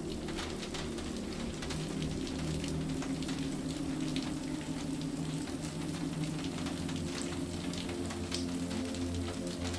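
Steady rain with many distinct drops pattering, over soft, calm music of long-held low notes.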